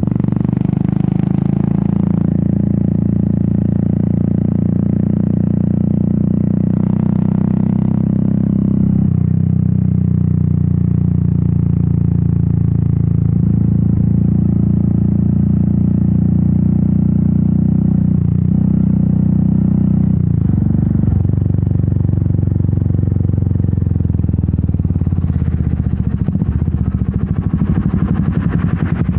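Royal Enfield Meteor 350's single-cylinder engine and exhaust running under way, steady, with brief dips in pitch about 9, 18 and 20 seconds in. Near the end the engine note drops to a lower, uneven pulsing beat as the motorcycle slows.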